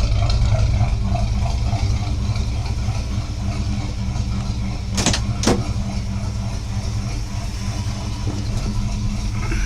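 Pontiac Firebird Formula 400's V8 idling steadily as it warms up from a cold start, running with no choke on the carburettor. Two short sharp clicks about halfway through.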